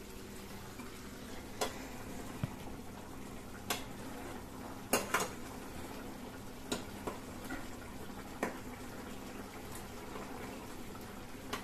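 A spoon clinking against a cooking pot while chicken gravy is stirred, about six short sharp knocks spread out at irregular intervals, over a steady low hum.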